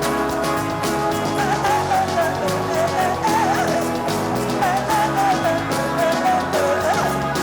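Live band playing an instrumental passage: steady chords and a bass line, with a winding lead melody coming in about a second and a half in.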